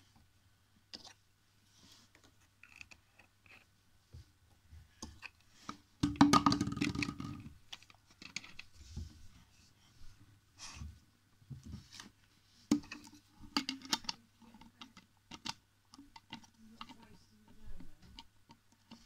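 Plastic screw caps being twisted onto plastic drink bottles and the bottles handled on a wooden floor: scattered clicks and knocks, with a louder clatter lasting over a second about six seconds in and a sharp knock about two-thirds of the way through.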